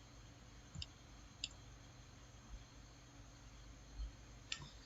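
Computer mouse clicks: three short, sharp clicks spread over a few seconds, with a soft low bump near the end, over a faint steady hum.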